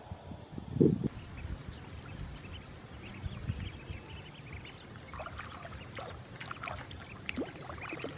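Water splashing and lapping as a flock of domestic ducklings swims, with scattered short high peeps in the second half. A single low thump about a second in is the loudest sound.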